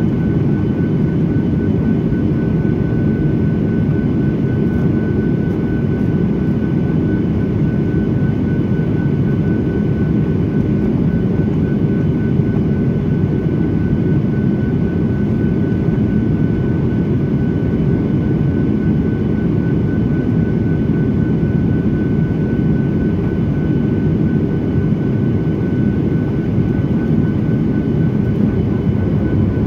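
Steady cabin noise inside a Boeing 737-800 in flight: the low, even drone of its CFM56-7B jet engines and the airflow around the fuselage, with a thin steady whine above it.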